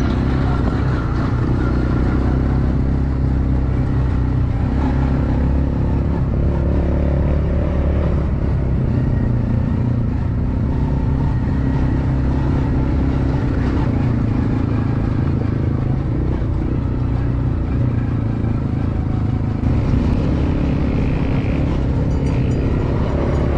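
Off-road vehicle engine running steadily with little change in pitch, a slight rise in level about twenty seconds in.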